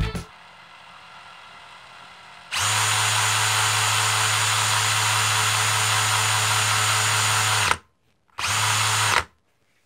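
DeWalt 18 V brushless cordless drill running at full speed, about 2000 RPM, spinning a Lego V8 engine model by its crankshaft. It starts about two and a half seconds in, runs steadily for about five seconds and stops, then gives one short second burst.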